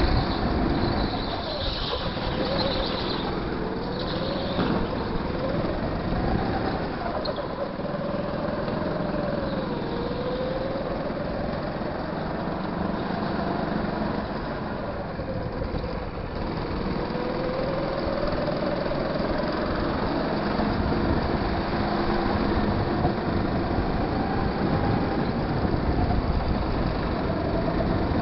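Go-kart engine heard from on board the kart, running continuously with its pitch rising and falling in slow waves as the throttle opens and closes through the corners.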